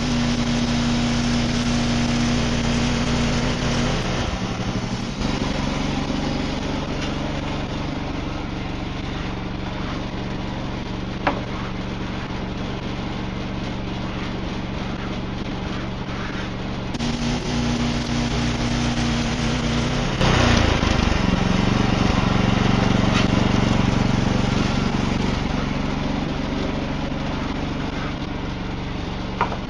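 Wood-Mizer portable sawmill running, its engine pitch shifting a few times, with a louder, rougher stretch from about a third of the way through the last half as the band blade works through a black walnut log.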